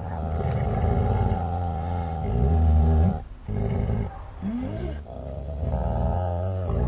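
Dogs growling and snarling in continuous low rumbles. The rumbling breaks off just after three seconds in and comes back in rougher snarls.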